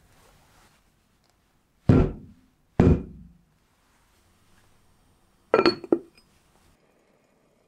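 A small frying pan full of cake batter dropped twice onto the table, two heavy thuds about a second apart that knock out air bubbles. A few seconds later a glass lid clinks down onto the pan's rim with a few quick ringing clinks.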